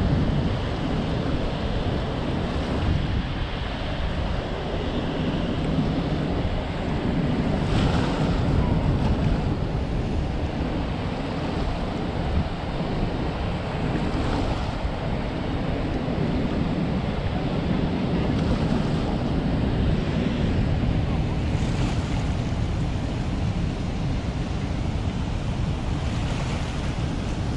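Steady wind buffeting the microphone, mixed with the continuous rush of river water pouring from the dam's spillway.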